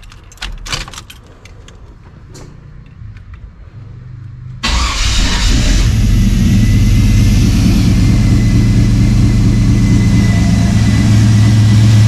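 A few clicks and knocks, then the Chevrolet C/K1500 pickup's engine starts suddenly about four and a half seconds in and settles into a steady idle. It starts and runs even with its oil pressure switch unplugged.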